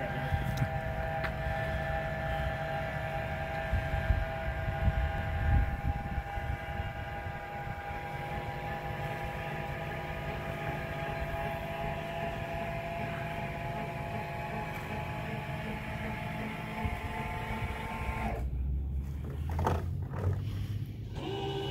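Electric motors of a powered wheelchair-access truck cap raising the cap, a steady whine that cuts off sharply about eighteen seconds in as the cap reaches full open. A low rumble runs underneath, and there is a short knock soon after the whine stops.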